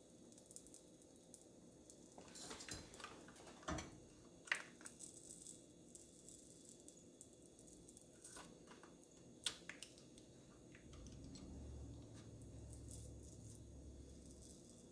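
Mostly near silence, with faint rustles and small clicks of hands handling a plastic range control board and its peeled-off membrane overlay. The sharpest clicks come about four and a half and nine and a half seconds in. A faint low rumble runs through the last few seconds.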